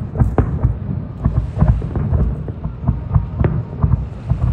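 Aerial fireworks shells bursting in a rapid barrage of booms and cracks, several a second.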